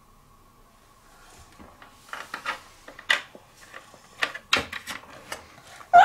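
Small plastic toys and dollhouse parts being handled, giving irregular light clicks and knocks that start about two seconds in.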